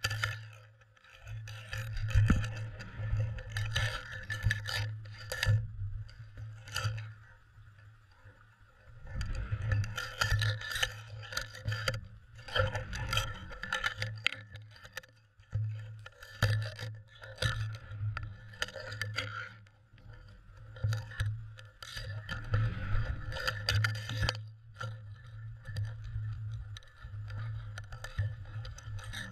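Underwater GoPro camera housing on a cod jigger knocking, rattling and scraping as the jig is jerked through the water and cod bump it, heard muffled through the waterproof case, with a low hum that comes and goes.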